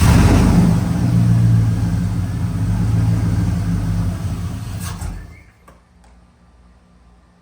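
2001 Chevrolet Silverado pickup engine catching from a crank and running loudly for about five seconds, then dying out a little past five seconds in. The truck starts but will not stay running, which the owners put down to the security system shutting it off.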